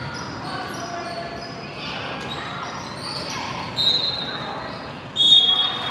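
Basketball game on a hardwood court: the ball bouncing and voices from players and spectators. Two short, high shrill tones sound, one about four seconds in and a louder one near the end.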